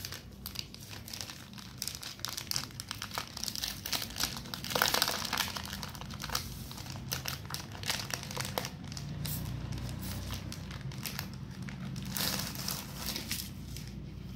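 Plastic packaging crinkling and rustling as a brush set is unwrapped and handled, with many small clicks throughout; busiest about a third of the way in and again near the end.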